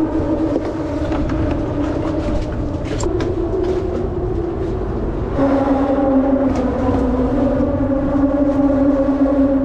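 Steady drone of passing vehicle traffic: a few strong held tones over a low rumble. About five seconds in it drops slightly in pitch and grows louder.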